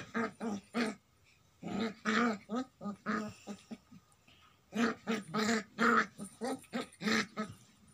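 Puppy making short, repeated yips and whines in several quick clusters while play-fighting with a cat.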